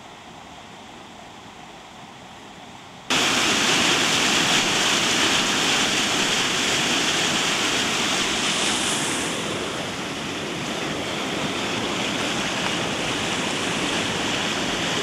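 Floodwater gushing out of an overflow drain outlet, a loud, steady rush of foaming water that comes in suddenly about three seconds in, after a faint hiss of water.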